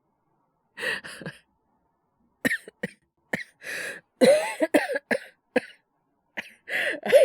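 A young man's voice in a coughing fit from a bad cold, acted: a short cough about a second in, then a long run of sharp, harsh coughs in close clusters.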